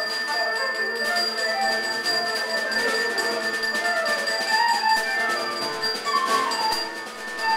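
Live small-group jazz: flute lines moving over piano and drums with cymbal strokes, alongside alto saxophone, in a free, loosely pulsed improvisation.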